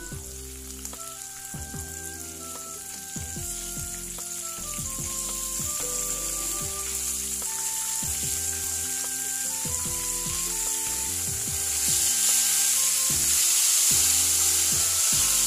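Hot oil sizzling steadily as pieces of mackerel tuna shallow-fry in a wok, growing louder about three-quarters of the way through. Gentle background music with held notes plays underneath.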